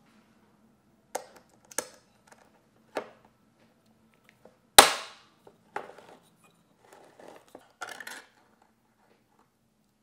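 Handheld can opener on a coconut milk can: a few sharp metallic clicks, one much louder about halfway through, then short stretches of crunching as the blade cuts around the lid.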